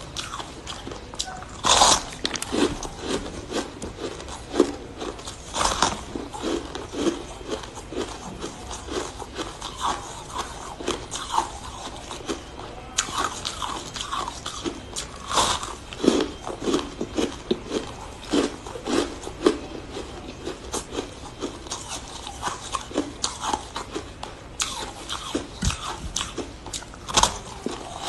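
Close-up biting and chewing of compacted shaved ice: an irregular stream of crisp crunches, with a few louder bites about 2, 6, 16 and 27 seconds in.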